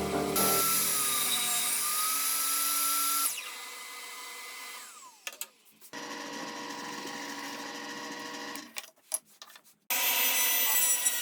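A power tool running on wood in several short stretches with a steady whine, broken by sudden stops and brief gaps.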